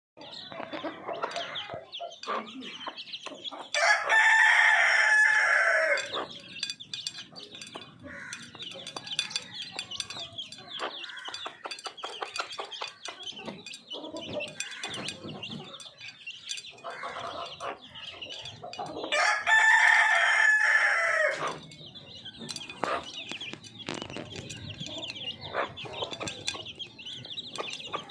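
Parrot-beak aseel rooster crowing twice, each crow about two seconds long, the first about four seconds in and the second about twenty seconds in. Softer clucks and short calls from the fowl fill the time between the crows.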